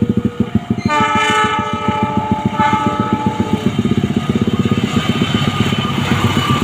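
Train horn sounding a multi-tone chord: a long blast about a second in, then a shorter one right after. Under it runs a rapid, even low throbbing.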